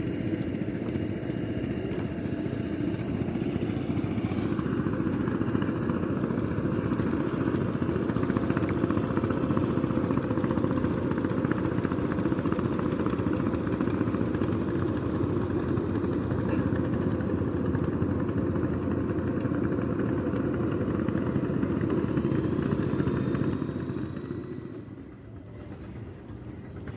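A motor engine running steadily, then dying away about three-quarters of the way through.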